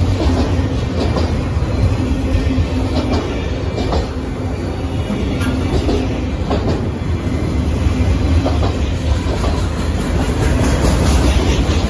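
Autorack freight cars rolling past close by: a steady low rumble with irregular clicks and clatter of the wheels over the rail joints.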